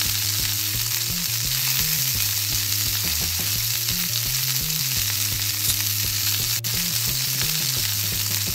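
Sizzling frying sound effect: a steady hiss like food frying in a hot wok, running on without a break.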